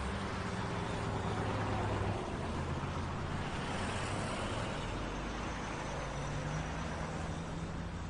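Road traffic: motor vehicle engines running nearby with a steady low hum over the general noise of the street.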